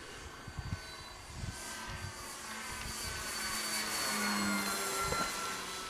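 RC model airplane's motor and propeller whining in flight. The sound grows louder as the plane passes, peaks about two-thirds of the way through, then fades, with its pitch sliding slightly. Low wind buffeting rumbles on the microphone underneath.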